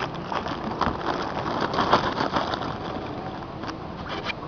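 Plastic packaging rustling and crinkling as it is handled, with many small irregular clicks and crackles.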